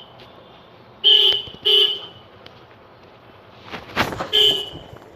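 Vehicle horn tooting in short blasts, three times: twice close together about a second in, then once more near the end. Just before the last toot there is a brief rushing noise.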